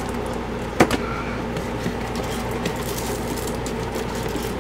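Steady low electrical hum with one sharp click a little under a second in and a few faint taps, the sounds of handling items from a lens box.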